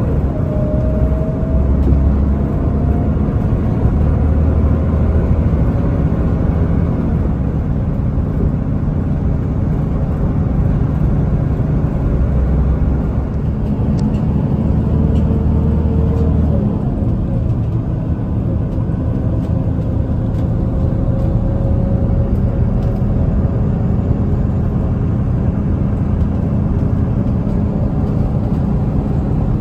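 City bus engine running with road and tyre noise, heard from inside the passenger cabin. The engine note rises and falls gently as the bus slows and pulls away.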